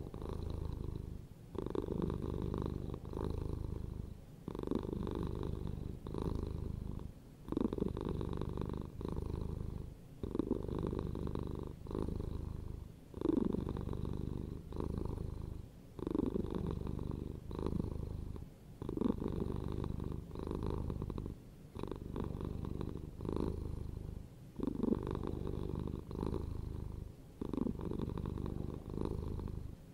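Domestic cat purring close up: a steady low purr in long pulses, broken by brief dips every two to three seconds.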